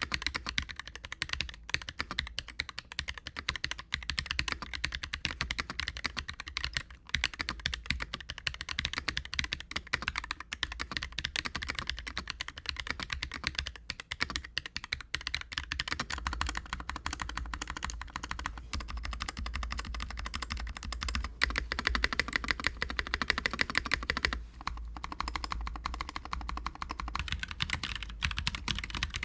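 Continuous typing on an NK65 Entry mechanical keyboard with tactile switches and GMK doubleshot keycaps: a dense, steady patter of key presses. About halfway through, the sound turns deeper as a different set of switches is typed on.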